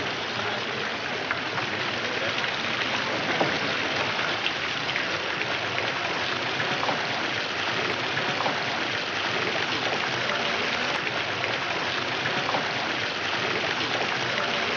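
Ornamental fountain's water jets splashing steadily into a pool, an even hiss with no break.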